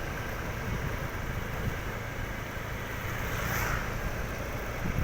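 Steady low outdoor rumble, like passing traffic or wind on the microphone, with a brief hiss about three and a half seconds in.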